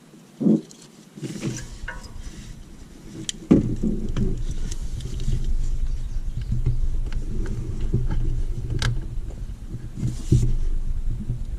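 A thump, then the 2002 Silverado's 4.8L Vortec V8 starting up about three and a half seconds in and running steadily.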